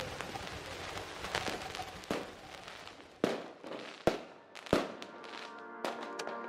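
Fireworks going off: a crackling haze, then about five separate sharp bangs a second or so apart, with faint music underneath.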